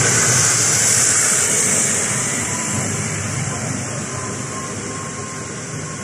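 Backhoe loader's diesel engine running as the machine drives past and off down the road, the sound fading steadily from about two seconds in.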